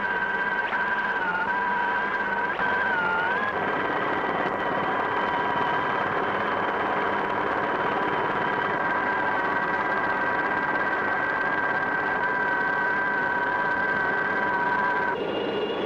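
Helicopter turbine engine heard from inside the cabin: a steady, high whine that dips in pitch twice in the first few seconds and changes tone shortly before the end.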